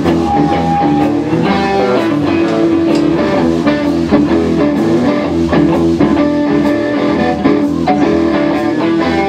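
Live band playing an instrumental blues-rock passage: several electric guitars over a bass line and drum kit, loud and steady, with no singing.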